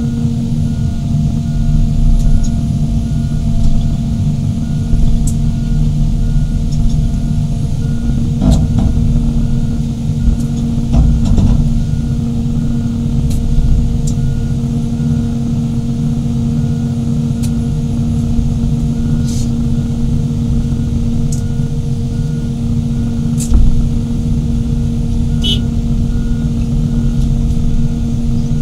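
Hydraulic excavator's diesel engine running at steady revs with a constant hum, and a few short clicks and knocks scattered through.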